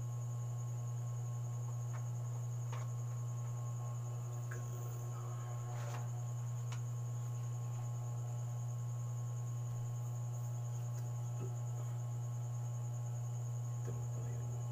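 A steady low electrical hum with a faint, thin high whine above it, and a few faint clicks of the drone and its packaging being handled, one about six seconds in and a few near the end.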